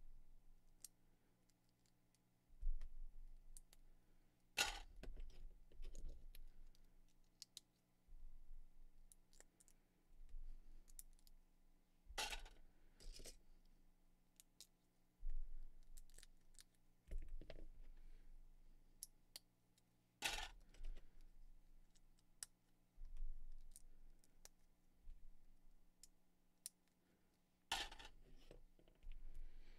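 Small Lego pieces being handled and snapped together by hand: light plastic clicks and rattles throughout, with four louder sharp snaps about eight seconds apart and soft knocks on the table, over a faint steady hum.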